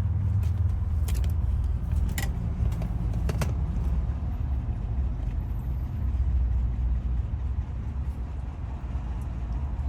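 Vehicle running, heard from inside the cabin as a steady low rumble, with a few light clicks in the first few seconds.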